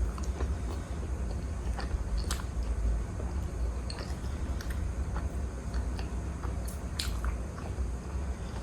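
Close-up chewing and biting of juicy pork momo dipped in tomato achar: wet, squishy mouth sounds with scattered small clicks and smacks, over a steady low hum.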